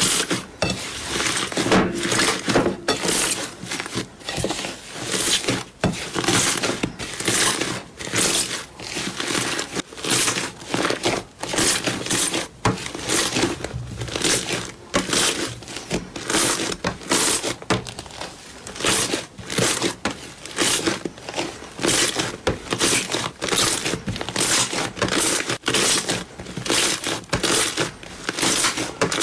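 Slime being squeezed and pressed by hand: repeated short squishes, about one or two a second, with no break.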